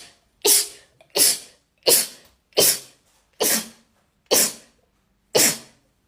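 A person sneezing over and over in quick succession, seven short sneezes in a row a little under a second apart.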